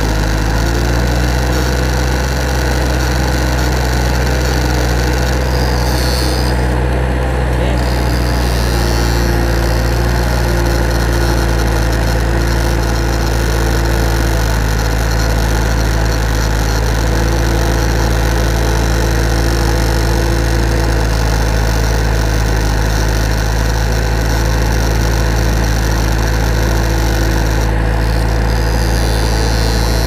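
A steady, loud low drone like an idling engine, with a higher whine that comes and goes several times.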